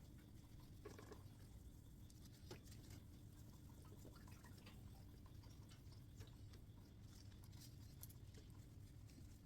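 Near silence with faint scattered scratching and light ticks: a cloth rubbing metal polish on a motorcycle's steel expansion chamber.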